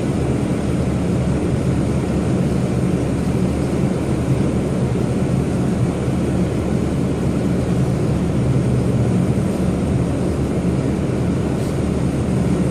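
Jet airliner engines running steadily at an airport, a constant low rumble with no rise or fall in pitch.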